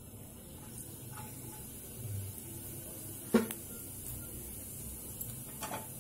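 Cumin seeds sizzling faintly in hot oil in a kadhai. There is a sharp knock of a utensil about three and a half seconds in and a lighter one near the end.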